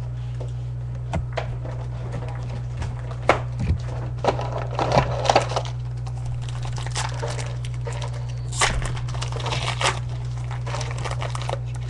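Foil booster-pack wrapper being torn and crinkled and trading cards handled: scattered crackles, rustles and small clicks over a steady low electrical hum.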